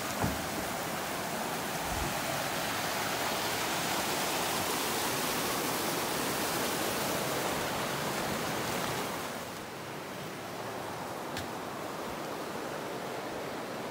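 River water rushing over rocks, a steady hiss that drops in level about two thirds of the way through. One short knock comes just after the start.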